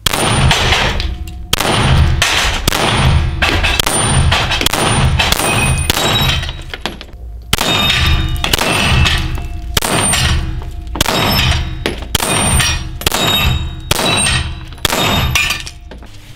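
Rapid strings of 9x19 pistol shots from a Laugo Arms Alien, each followed by the ringing clang of a steel gong being hit, about two shots a second with a brief pause about midway.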